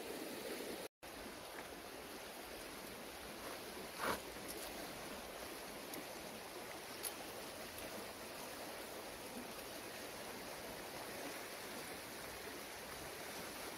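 Steady outdoor background hiss with two brief, faint clicks, about four and seven seconds in.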